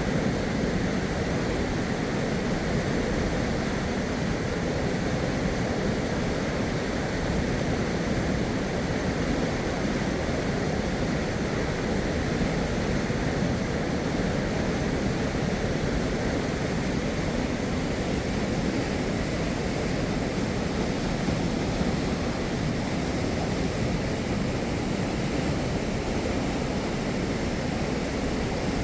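River water rushing, a steady, even noise that does not change.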